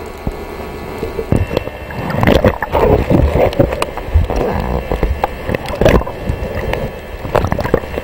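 Underwater sound at a moving camera: a steady hiss, then from about a second in churning water and bubbles with irregular gurgles and knocks as the camera is moved through the water.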